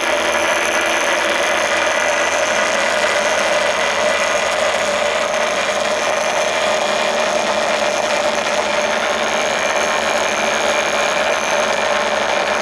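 Small two-transistor pulse motor of Lidmotor's design running on 9 volts, a diametrically magnetized magnet spun by a single coil on a plastic pill-bottle body: a steady buzz with a thin high whine above it.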